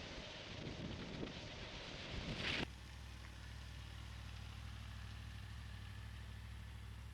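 Wind rushing over the microphone, cut off abruptly about two and a half seconds in. A steady low drone follows.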